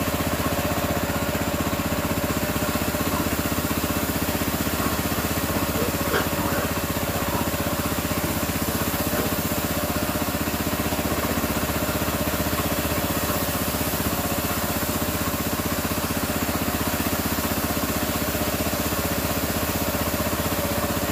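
A 6.5-horsepower gasoline engine driving a belt-driven pressure-washer pump, running steadily under load while the spray gun sprays water.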